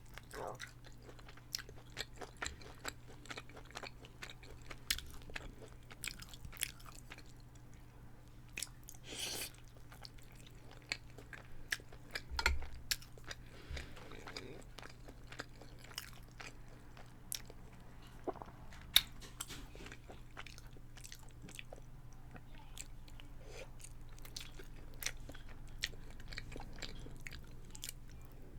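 Close-miked chewing and biting of a chicken parmesan and spaghetti meal with a crispy cheese crust: many small crunches and mouth clicks. A faint steady low hum runs underneath.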